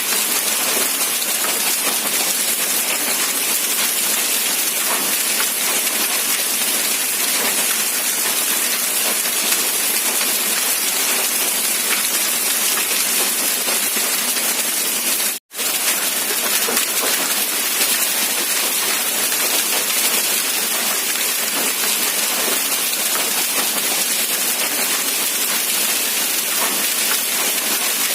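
Rain falling steadily, a dense even hiss with fine scattered drop patter. About halfway through the sound cuts out for a split second and then resumes.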